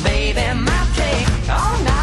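Background music: a pop song with a singing voice over a steady beat.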